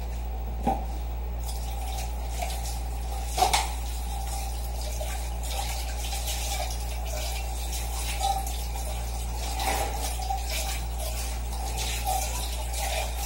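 Water running from a kitchen tap while a pot is rinsed under it. A few light knocks of the pot come through, the loudest about three and a half seconds in.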